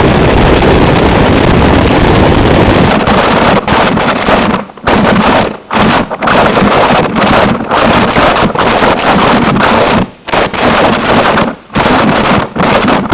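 Harsh noise wall music: a very loud, dense wall of distorted noise filling every pitch. About three seconds in, at the change to the next track, it turns choppy, broken by sudden brief dropouts at irregular intervals.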